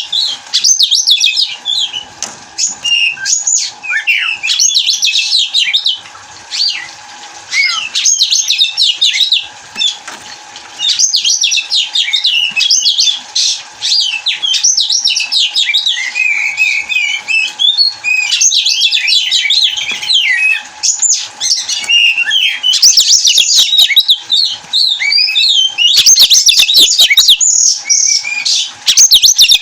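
Oriental magpie-robin (kacer) singing a fast, varied song of whistled and trilled phrases with short pauses, an excited full song of a bird in breeding condition. It turns harsh and scratchy in a couple of stretches in the last few seconds.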